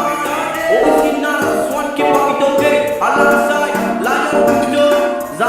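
Trap-style music track: a melodic line that slides between notes, over low bass thumps about once a second.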